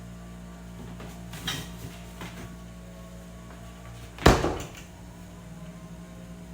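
Household handling sounds: two light knocks, then one loud clunk with a brief ring about four seconds in, over a steady low hum.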